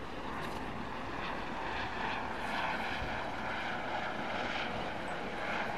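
A steady engine drone over outdoor city noise.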